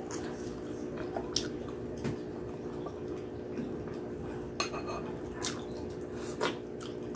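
Close-up eating sounds: wet mouth noises of chewing meat, then a wooden spoon clinking several times against a glass bowl in the second half, some clinks ringing briefly.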